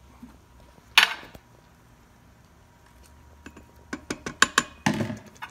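Silicone spatula stirring thick diced-tomato sauce in a stainless steel Instant Pot inner pot. There is a sharp knock about a second in, then a quick run of clicks and knocks against the pot near the end.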